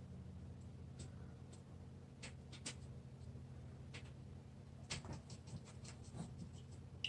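Faint scratchy strokes and light dabs of a wet paintbrush on paper, coming quicker for a couple of seconds past the middle, over a steady low hum.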